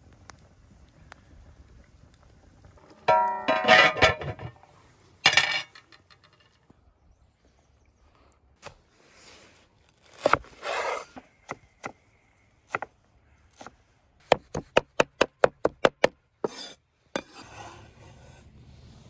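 A cleaver chopping fresh cilantro on a wooden cutting board: a fast, even run of about ten chops, about five a second, late on. Earlier comes a louder ringing metallic clatter, the loudest sound here.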